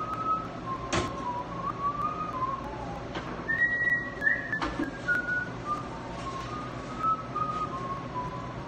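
A person whistling a slow, wandering tune, which rises higher for about a second in the middle. Two sharp knocks come through, about a second in and again just before the fifth second, while a long wooden baking peel is being handled.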